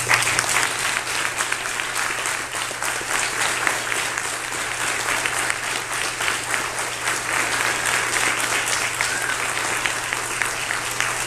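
A congregation applauding: many people clapping at a steady level, greeting a just-completed baptism by immersion.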